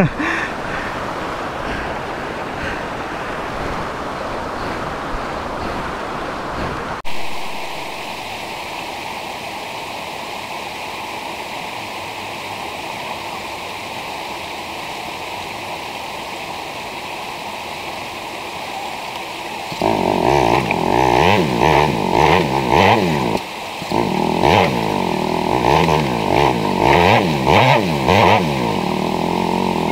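A steady rush of running water, then, about two thirds of the way in, a motorcycle engine revving up and down again and again, dropping out briefly once before revving on.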